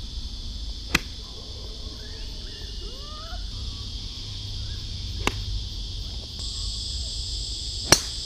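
Three golf tee shots: sharp cracks of a club striking the ball about a second in, past five seconds, and near the end, the last the loudest. A steady high insect drone runs underneath.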